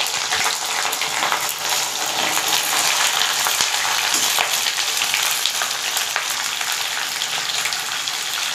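Diced capsicum and potato sizzling steadily in hot oil with cumin seeds in a metal kadhai, with fine crackling throughout. A slotted steel spoon scrapes against the pan now and then as the vegetables are stirred.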